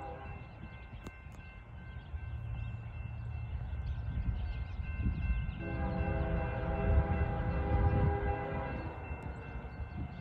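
Approaching Norfolk Southern-led freight train's diesel locomotive air horn, sounding for the grade crossing. One blast cuts off right at the start, and a long blast of about three seconds begins about six seconds in. A steady low rumble runs underneath.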